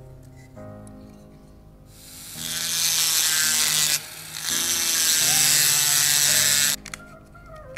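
Small handheld rotary tool grinding out the rivet on a die-cast toy car's metal base, the bit on the rivet post to free the base from the body. It comes in two loud runs, from about two seconds in to near seven seconds, with a short letup about four seconds in.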